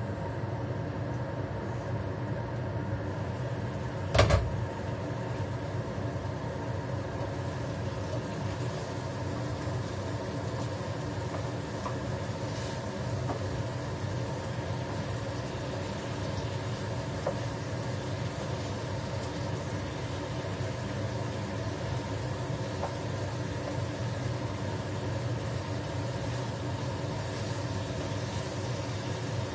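Steady mechanical hum under tofu frying in a pan on a gas stove, with one sharp clank of cookware about four seconds in.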